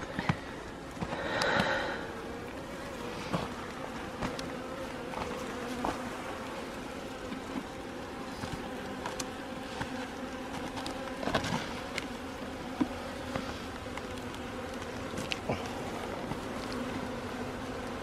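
Honeybees buzzing steadily around a frame lifted from a nuc box: a low, even hum that swells briefly about a second in, with a few faint clicks.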